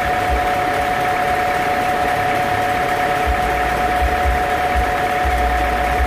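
A band sawmill running with a steady high whine that holds one pitch throughout, with occasional dull low thuds underneath.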